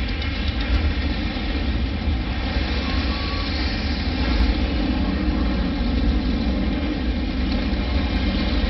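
Recorded Saturn V rocket liftoff played loud through a theater's sound system: a steady, continuous rumble, heaviest in the deep bass.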